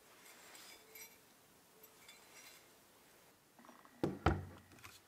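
Faint light metallic clinks of a steel part being handled at a bench vise, then two sharp thuds close together about four seconds in as a Metabo cordless angle grinder is set down on a wooden tabletop.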